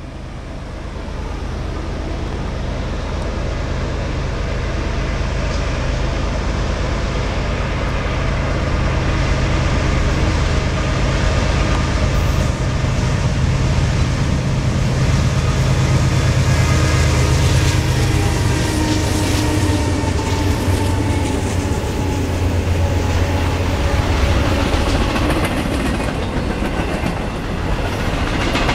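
Lead units of a CN freight, a GE ES44DC and two GE Dash 9 diesel-electric locomotives, running by, loud and steady with a deep engine drone. It grows louder over the first few seconds as they approach, with wheels clicking over the rails.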